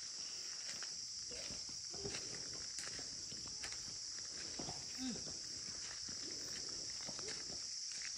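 Insects keep up a steady, high-pitched drone. Footsteps crunch irregularly on a gravel path over it.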